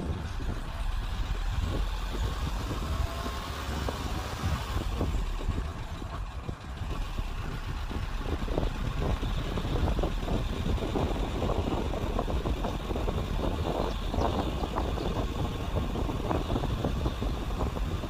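A vehicle driving along a paved country road: steady engine and road rumble with uneven rough thumps from about eight seconds on.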